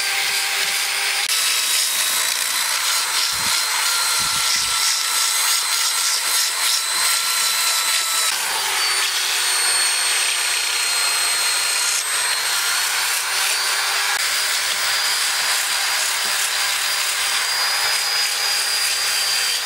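Electric drill with a small abrasive disc in its chuck, running at high speed and grinding into a wooden carving. It gives a steady high whine over the scratch of the disc on the wood, and the whine steps to a new pitch a few times.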